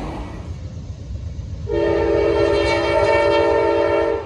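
Diesel locomotive air horn sounding one long blast, a chord of several tones lasting about two and a half seconds and cut off abruptly, over the low rumble of a train.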